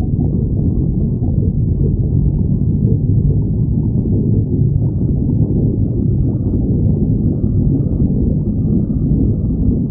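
A person's stomach growling: a continuous low rumble with no breaks.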